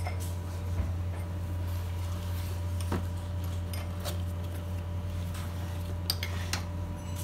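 A few scattered light clinks and clicks of a drinking glass against the metal fittings of a manual round screen-printing machine as the glass is handled in its holder, over a steady low hum.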